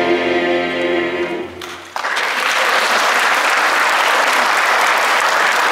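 A mixed choir with its accompaniment holds a final chord that fades away, and about two seconds in the audience starts applauding and keeps on clapping.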